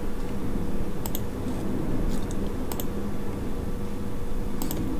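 Computer mouse clicks: three pairs of sharp clicks, each pair a split second apart, over a steady low hum of room noise.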